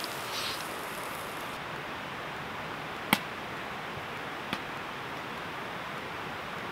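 Wood fire burning in a steel fire pit: a steady hiss with two sharp pops from the burning wood, the louder one about three seconds in and a fainter one about a second and a half later.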